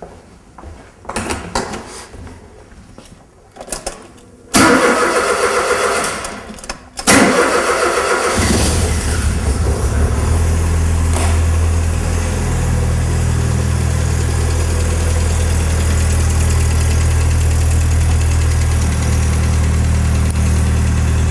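Morgan sports car engine being started: the starter cranks about four and a half seconds in, the engine catches at about seven seconds, and from about eight seconds it settles into a steady idle. It is a cold start, with the lambda sensor removed from the exhaust.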